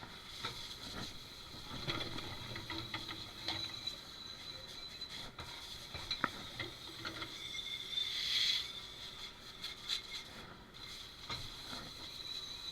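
Dish-pit clatter: dishes and utensils knocking and clinking as they are handled and racked, over a steady high-pitched whine from kitchen equipment, with a short louder hiss about eight seconds in.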